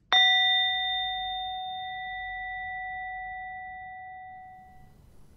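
A small metal singing bowl resting on a cushion is struck once with a mallet and rings with a clear tone and several overtones, fading out over about five seconds.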